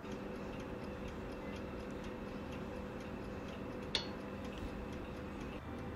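Oven running: a steady hum with fast, even ticking, and one sharper click about four seconds in.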